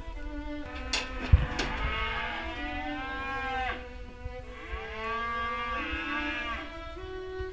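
Cattle mooing: two long calls, each about two seconds, rising and then falling in pitch. A single sharp clank, the loudest sound, comes a little over a second in.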